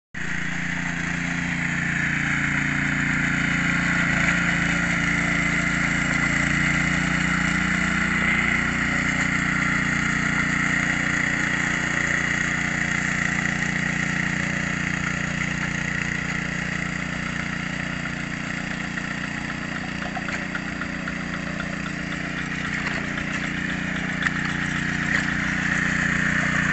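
Small Honda petrol engine on a two-wheel hand tractor running steadily as it works a flooded rice paddy, its note shifting slightly about seven seconds in.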